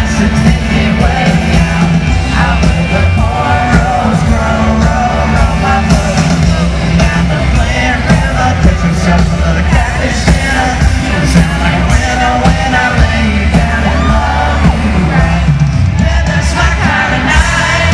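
Live country-rock band playing through a stadium PA, with a male singer and fans yelling along.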